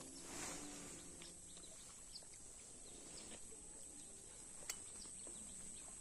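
Faint outdoor background with a few short, faint bird chirps and one sharp click a little past two-thirds of the way in.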